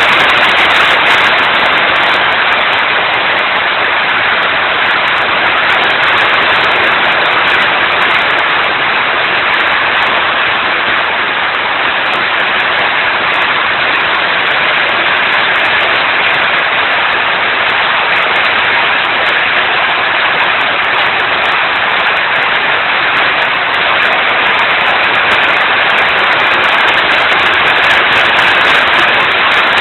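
Heavy rain pouring down in a loud, steady hiss that does not let up.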